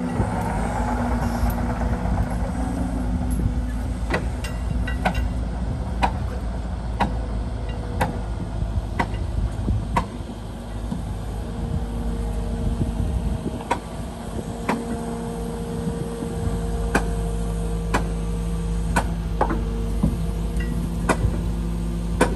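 Cat 308 mini excavator's diesel engine running steadily, with its note and load shifting about halfway through and again later on. Sharp ticks come about once a second over most of it.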